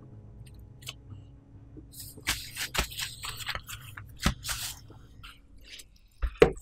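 Gloved hands working a ball of soft yeast dough on a silicone mat: a run of sticky slaps and clicks. Near the end come a few sharp knocks, the loudest sounds.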